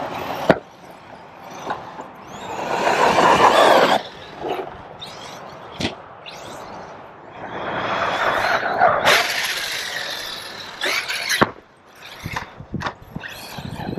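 Arrma Kraton 6S brushless electric RC monster truck being driven hard: two long swells of motor and tyre noise as it runs past, with sharp knocks about half a second in, near the middle and near the end.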